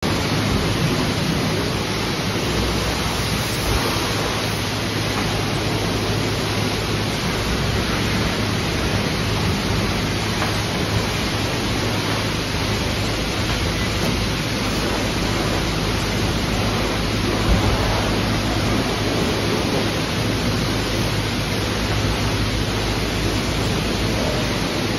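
Steady rushing hiss of spraying water in a self-service car wash bay, from the hose-fed foam brush and wash equipment, with a steady low hum of pumps or machinery underneath.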